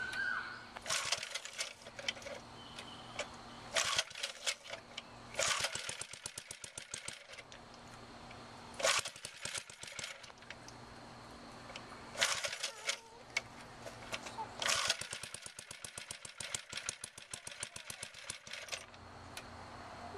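Small single-cylinder engine on a 1951 David Bradley walk-behind tractor being pull-started cold, without choke and on low throttle, with a freshly rebuilt carburetor. About six pulls on the starter rope each give a short run of rapid popping as the engine turns over. The last and longest lasts about four seconds, but the engine does not keep running.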